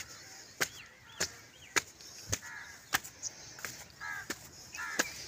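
Footsteps climbing bare concrete stairs: sharp, evenly paced steps about every 0.6 seconds. A few short bird calls come between the steps near the end.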